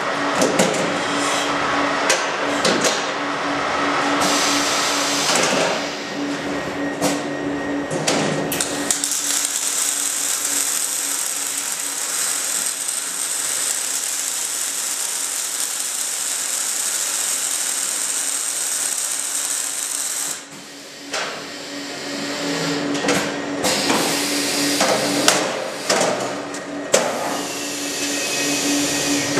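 Mechanized wire-fed arc welding of a steel pallet-rack beam: a steady hiss and crackle from the welding arcs that starts about nine seconds in and stops about eleven seconds later. Before and after it come sharp metallic clanks and knocks from the beam and machine, over a steady machine hum.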